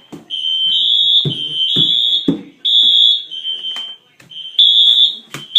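Several fire alarm sounders going off together in a test: piercing high-pitched tones at two slightly different pitches, pulsing out of step with short gaps, with a few sharp knocks among them.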